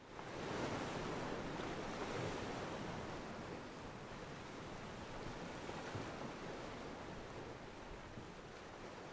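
Ocean surf breaking and washing in, a steady rushing noise that fades in at the start and slowly eases off.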